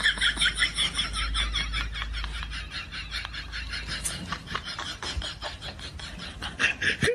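Dog whining in a fast run of short, high-pitched yips, about five a second, strongest at the start and again near the end.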